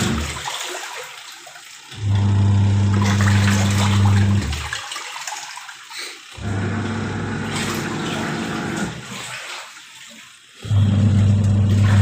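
Whirlpool Magic Clean 6.0 kg washing machine's wash motor humming in runs of two to three seconds with short pauses between, three runs in all, churning and sloshing the water in the wash tub.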